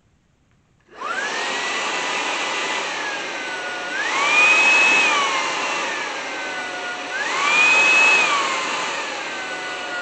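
Ultenic FS1 cordless stick vacuum's motor switching on about a second in and spinning up to a steady whine. Its speed then rises and falls twice, the whine going higher and louder, then back down.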